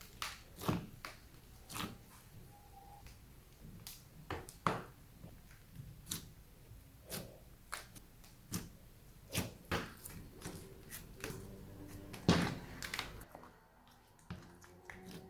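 Slime being squished and kneaded by hand, giving irregular sharp pops and clicks from trapped air, about one or two a second, with the loudest pop near the end.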